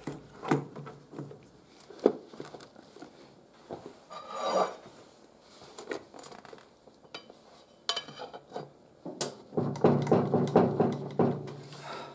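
Clicks, knocks and metallic clatter as a Suzuki Bandit 1200 carburettor bank is worked into the engine's rubber intake boots, a tight, hard fit. Near the end there is a denser stretch of about two seconds with a low pitched sound under the knocks.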